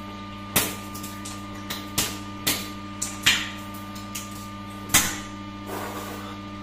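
Raw eggs being crushed in a person's mouth, shell and all: a string of about ten sharp, irregular cracks and wet splats as yolk and shell spill out, the loudest about five seconds in. A steady low hum runs underneath.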